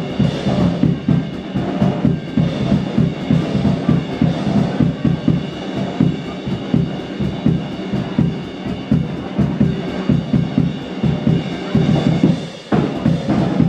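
Live blues band playing an instrumental passage, a drum kit keeping a steady beat under electric guitars. Near the end the band drops out for a moment and comes back in on a sharp hit.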